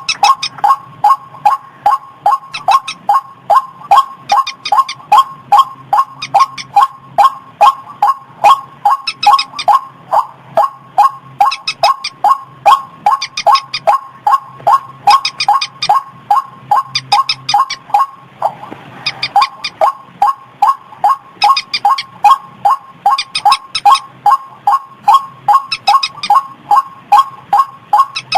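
White-breasted waterhen (ruak-ruak) calls played as a bird lure: a loud, monotonous call repeated about three times a second without a pause. A brief hiss cuts in about two-thirds of the way through.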